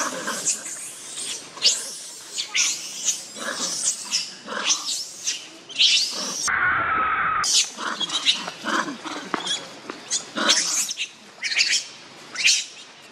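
Young long-tailed macaques screaming during a scuffle: many short, sharp, high-pitched cries one after another, with about a second of muffled sound around six and a half seconds in.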